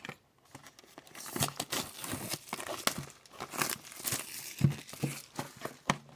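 Plastic wrapping crinkling and tearing as packs of hockey cards are opened by hand, in a quick irregular run of crackles starting about a second in.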